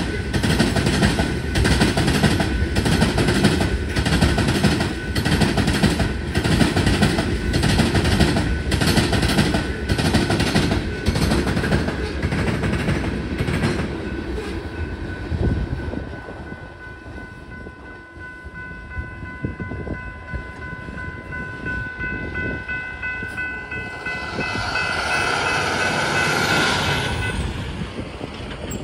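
Loaded freight cars of a rock train rolling past, their wheels clacking over the rail joints about twice a second. The clacking dies away about halfway through as the last cars pass. In the quieter second half a steady high tone of several pitches holds, and a louder rushing sound swells and fades near the end.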